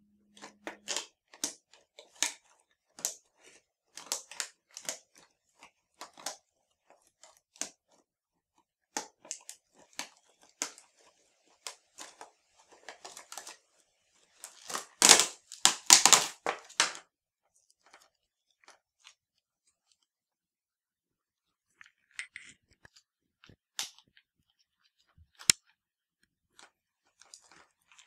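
Clear plastic doll packaging being handled and cut open with scissors: a string of short crinkles, snips and clicks, with a louder run of crackling a little past halfway.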